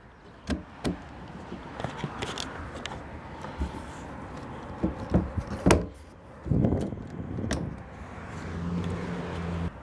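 Scattered clicks and knocks of a plastic trash can's lid and hinge being handled and lined up by hand. A low steady hum rises near the end.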